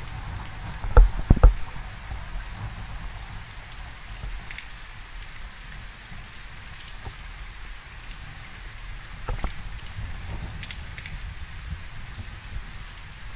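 Steady rain from a weak thunderstorm, with a low rumble underneath. A few sharp knocks come through: two about a second in, and a couple more around nine seconds.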